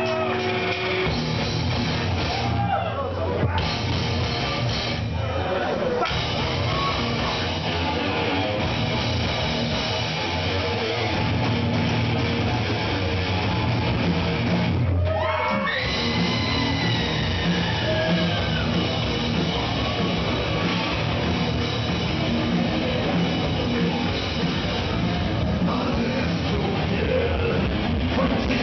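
A rock band playing live in a club: distorted electric guitars and a drum kit through the PA, with a singer's voice over it. The music breaks off briefly about fifteen seconds in, then comes back.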